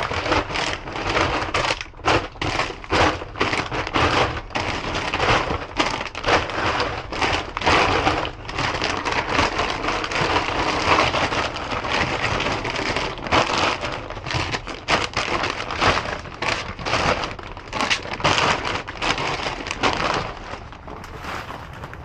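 Rummaging through a dumpster: plastic and paper bags of trash and dog food rustling, crinkling and being shifted, with many small knocks and crunches in quick, irregular succession.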